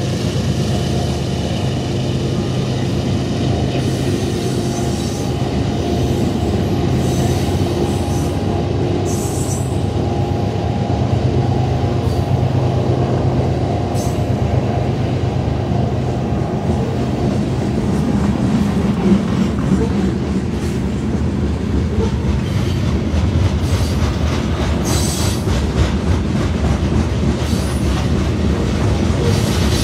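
Union Pacific grain train rolling past. The locomotives' diesel drone fades over the first half as the covered hopper cars follow, their wheels rumbling and clacking on the rails. Brief high wheel squeals come several times as the cars round the curve.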